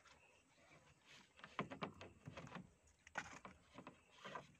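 Faint, irregular knocks and rustles of a fish trap and its catch being handled, a few short clatters bunched in the middle and near the end.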